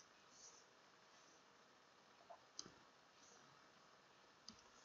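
Near silence, broken by a few faint, short clicks of a computer mouse.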